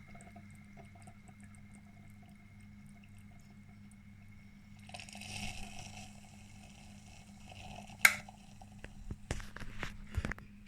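Gaggia Bonita coffee maker brewing: a steady low hum with watery gurgling and dripping, and a hissing stretch about five seconds in. A sharp click comes about eight seconds in, followed by a few knocks near the end.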